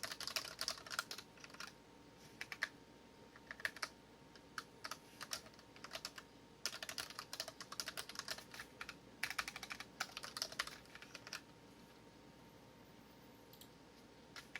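Typing on a Dareu EK820 mechanical keyboard with red linear switches: quick bursts of keystrokes broken by short pauses. The typing stops about two-thirds of the way through, leaving a single click near the end.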